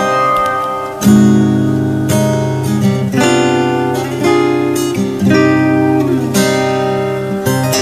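Acoustic guitar playing with strummed chords, a new chord struck about once a second and left ringing.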